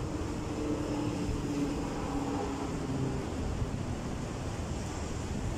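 Steady low traffic rumble, with a faint engine hum that fades after about three seconds.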